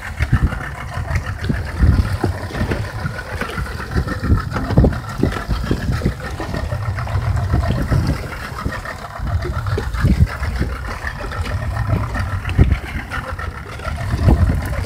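Wind rumbling on the microphone in irregular gusts over the steady hum of a small boat's idling outboard motor.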